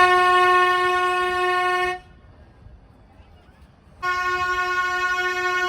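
Nilgiri Mountain Railway locomotive horn giving two long, steady blasts. The first ends about two seconds in; the second starts about four seconds in and is still sounding at the end.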